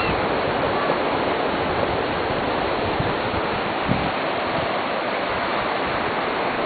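Steady rushing noise of surf and wind at the water's edge, with no distinct events standing out.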